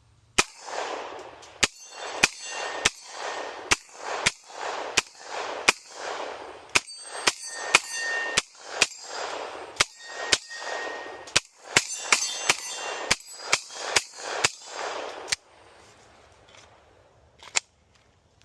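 Airsoft gun firing about twenty single shots in steady succession. Each sharp crack is followed by a short hiss, and some carry a brief metallic ring. The shooting stops after about fifteen seconds, and one last shot follows near the end.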